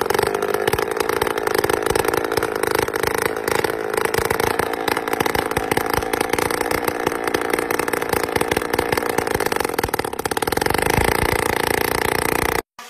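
Small single-cylinder petrol engine mounted on a wheelchair, running steadily with a fast, buzzing firing rhythm; it cuts off abruptly near the end.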